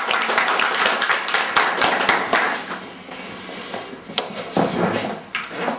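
A small group of people applauding, the clapping thinning out and dying away about halfway through.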